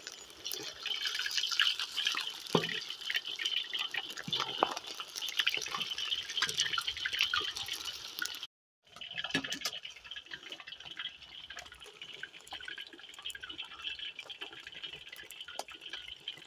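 Boneless chicken pieces deep-frying in hot oil in a large steel kazan, a steady sizzle full of fine crackling pops. The sound breaks off briefly about eight and a half seconds in, then the sizzle carries on.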